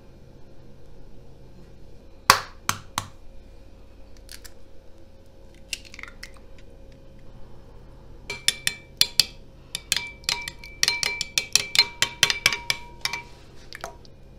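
Metal spoon clinking against a ceramic bowl while beating egg into yogurt. There are a few sharp knocks about two seconds in, then from about eight seconds a quick run of clinks, several a second, with the bowl ringing.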